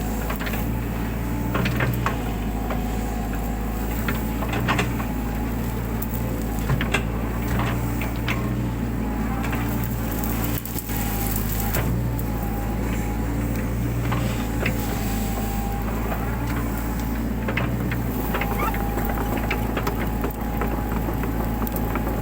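Mini excavator's diesel engine running steadily under load, with a whine that rises and falls in pitch and scattered sharp cracks and snaps of brush and wood being broken.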